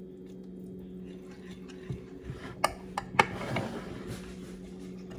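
Two sharp clicks of kitchenware being handled, about half a second apart, with a brief rustle after the second, over a steady low electrical hum.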